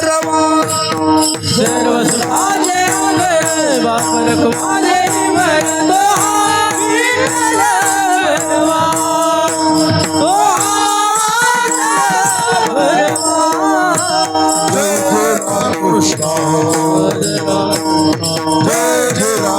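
Marathi devotional bhajan: a long, drawn-out sung melody bending up and down in pitch, over a steady held drone, with rattling hand percussion keeping time.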